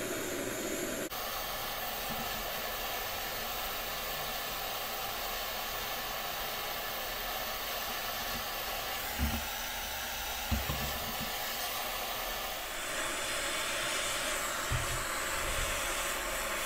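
MAPP gas hand torch burning with a steady hiss, its flame heating a seized freewheel on a dirt bike's rear hub to loosen it. A few brief, soft knocks come through in the second half.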